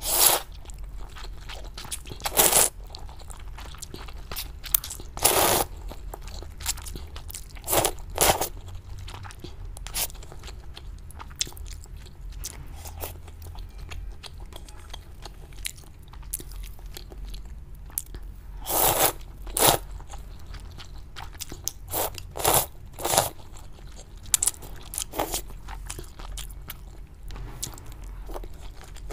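Close-miked eating of spicy rice noodles: a series of loud, short slurps as noodles are sucked in, with wet chewing and crunches from fried toppings between them.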